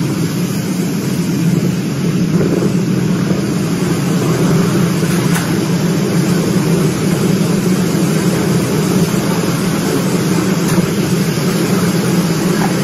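A steady, loud rumbling noise with no breaks or separate events.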